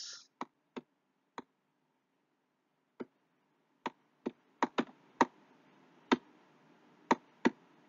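About a dozen sharp, irregular clicks of a stylus tapping and lifting on a pen tablet while handwriting, several of them bunched together about four to five seconds in.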